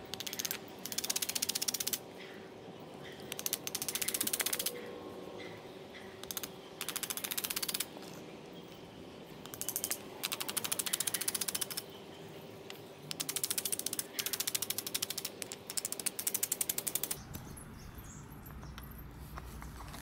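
A hammer driving nails into a small wooden board: six runs of rapid, sharp taps with short pauses between them.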